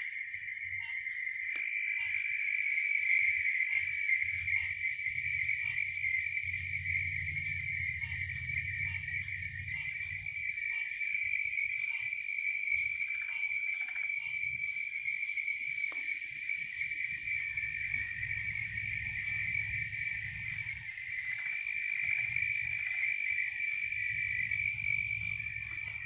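A dense, steady chorus of crickets trilling without a break. For the first half, a fainter, lower call repeats a little more often than once a second beneath it.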